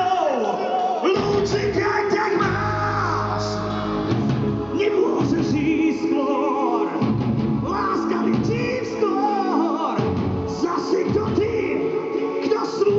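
Live music with singing: a voice sings wavering, held notes over a sustained accompaniment.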